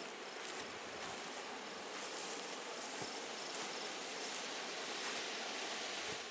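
Steady hiss of wind over the microphone in open grassland, unchanging throughout.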